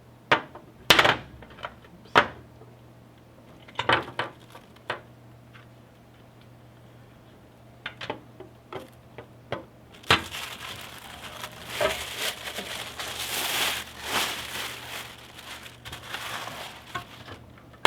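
Hard parts knocking and clinking as they are handled against a tempered glass shelf, a handful of separate sharp knocks, then about seven seconds of plastic packaging crinkling and rustling with clicks mixed in.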